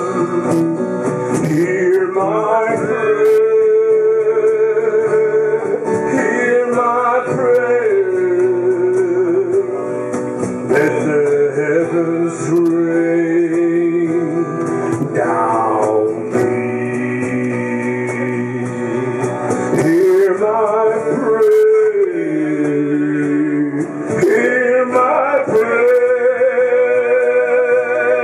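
Acoustic guitars strumming under a melody of long held notes that waver in pitch, in a live acoustic band performance.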